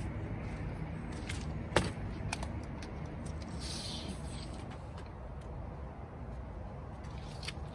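Scattered light clicks and knocks from a tape measure and metal straightedge being handled on a panel, with one sharper knock about two seconds in, over a steady low rumble.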